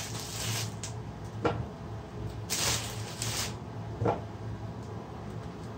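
Rustling and a couple of light taps as slices of bread are handled and laid on an electric table grill, over a low steady hum.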